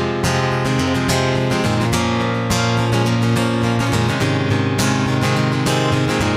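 Acoustic guitar strumming chords in a steady rhythm, an instrumental passage of a live solo song performance.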